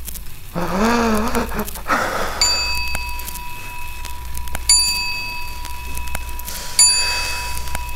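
Sound-design soundtrack: a wavering, voice-like wail lasting about a second. Then a bell-like chime is struck three times, about two seconds apart, each strike ringing on over a steady high tone.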